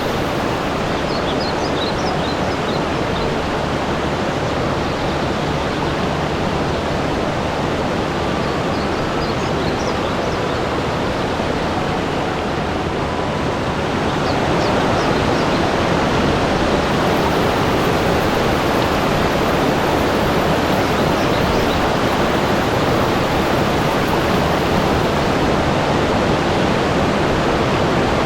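Steady rushing water, a little louder from about halfway through, with a few faint short high chirps now and then.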